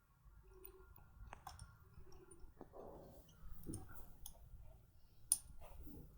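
Faint, irregular small clicks and light rattling of a rotor-pick decoder working the pins inside a Bricard Chifral 2 lock cylinder. The sharpest click comes about five seconds in.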